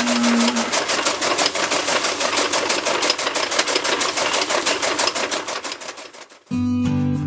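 Rapid, even mechanical clicking, about nine clicks a second, fading out about six seconds in; then acoustic guitar music starts near the end.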